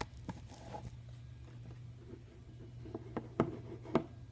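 Faint handling noises, light rubbing and scraping with a few sharp clicks, the loudest two near the end, over a low steady hum.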